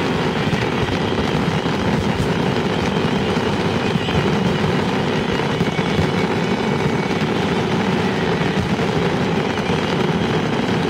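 Fireworks finale barrage: a great many aerial shells bursting so close together that they merge into one loud, steady, dense rumble.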